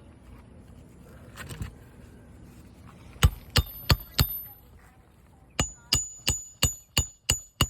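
Hammer driving roofing nails through a shingle: four quick ringing strikes, a short pause, then seven evenly spaced strikes about three a second, each with a high metallic ring.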